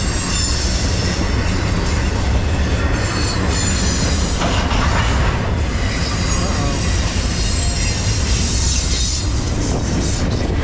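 Double-stack intermodal freight train's well cars rolling past at close range: a steady rumble of steel wheels on rail, with faint high-pitched wheel squeal above it.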